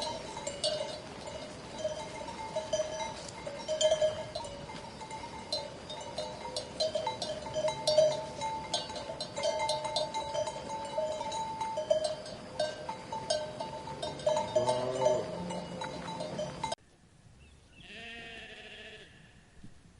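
Bells on a grazing flock of sheep clank and ring without a break, and a sheep bleats once near the end of the ringing. The sound then cuts off suddenly, and a single, quieter sheep bleat follows.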